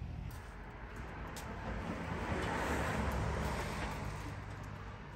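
A vehicle passing by: a rumble and tyre noise that swell to a peak midway and then fade away.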